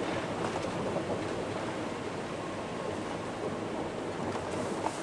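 Dodge pickup truck driving slowly through floodwater, heard from inside the cab: a steady rush of engine and water washing against the body. There is a light knock near the end.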